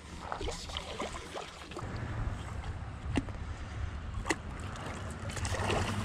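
A hooked catfish splashing and thrashing at the water's surface beside the bank, with wind rumbling on the microphone from about two seconds in. Two sharp clicks come about a second apart in the middle.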